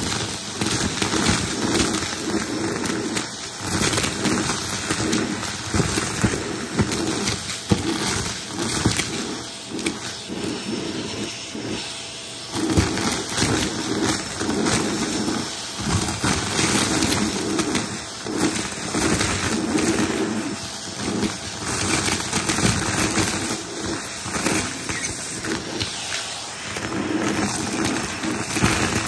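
Vacuum cleaner running with a crevice tool on its hose, sucking up confetti, sequins and clumps of dust from a shaggy rug; the pieces click and crackle constantly as they are drawn up the hose.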